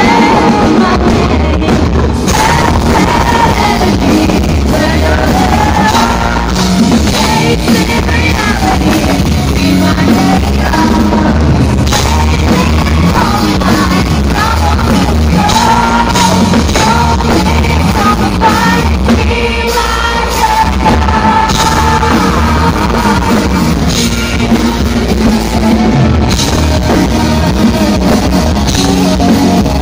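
Live hard rock band playing at full volume: a woman singing lead over electric guitar, bass and a pounding drum kit.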